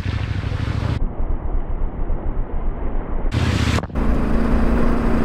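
Motorcycle engine running on the move, with wind rushing over the microphone. The sound changes abruptly a few times, and from about four seconds in a steady engine hum holds.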